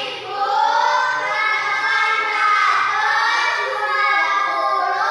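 A group of young children singing together in unison, loudly and without a break.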